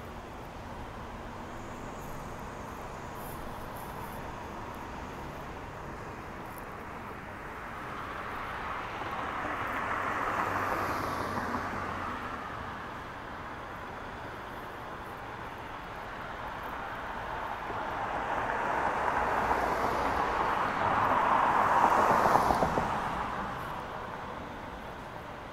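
Street traffic with two vehicles passing close by, each swelling up and fading away: the first about ten seconds in, the second louder, peaking near the end.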